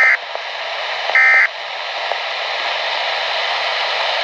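Weather radio emergency alert data tones: a short, loud screeching burst at the start and another about a second in, then steady radio static hiss.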